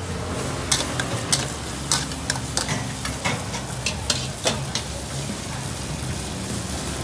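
Diced vegetables sizzling in a steel wok over a gas burner, with repeated sharp metal clinks and scrapes of a spatula and spoons against the wok and small seasoning bowls.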